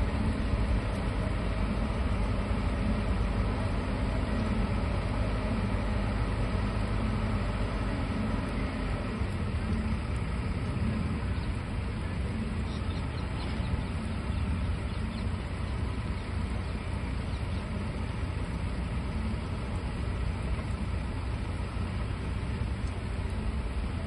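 Heavy diesel engines of a telehandler and a transit concrete mixer truck running steadily, a little louder for the first several seconds and then easing slightly.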